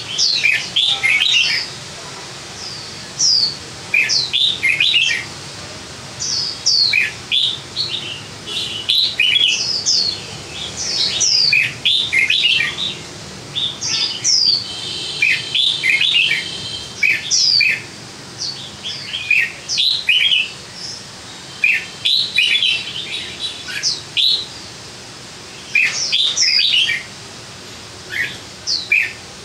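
Caged songbird singing its full song: repeated phrases of sharp, downward-sweeping whistles and chirps, with a harsher buzzy passage about halfway through.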